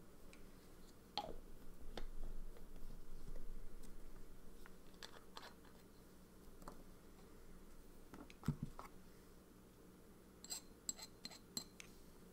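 Quiet handling noises at a desk: scattered light clicks and taps, a low thump about eight and a half seconds in, and a quick run of sharp clicks near the end.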